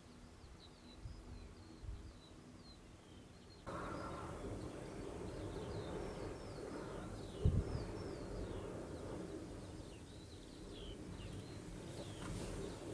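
Small birds singing in open farmland, a run of short high notes that each slide downward, over wind noise on the microphone that gets much louder about four seconds in. A single low bump comes just past the middle.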